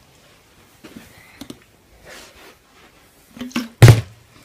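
A plastic water bottle flipped and landing with one loud thud near the end, after a few faint taps and knocks.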